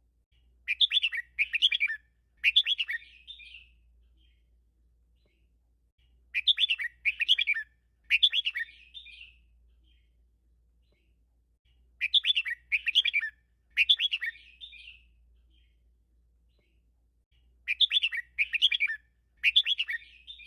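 Red-whiskered bulbul singing its 'double'-line song: the same short, fast phrase of three clustered notes with a fading tail, repeated four times, about every six seconds.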